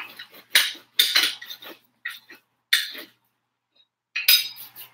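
Kitchen utensils and dishes clinking and knocking on a countertop: a handful of separate short clatters with pauses between.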